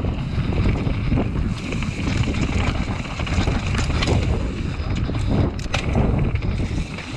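A mountain bike riding down a dirt trail: wind rushing over the microphone and a constant rumble of tyres and frame over rough ground. The bike rattles over bumps, with a few sharp clatters about five to six seconds in.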